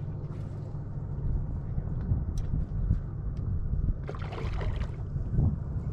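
Low, steady rumble of a bass boat on the water, with a couple of faint clicks partway through.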